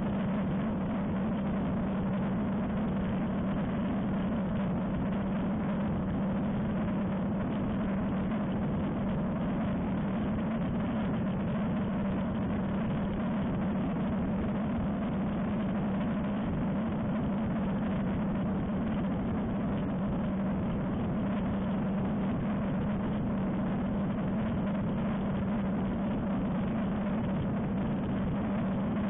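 Ultralight aircraft engine and propeller running steadily at cruise, a constant drone with a strong low hum, mixed with the rush of air over the outside-mounted camera.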